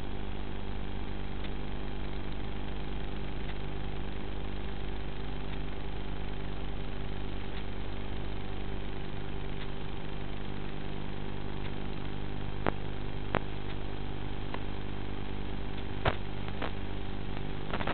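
Steady hum made of several even, unchanging pitches, with a few faint clicks in the last few seconds.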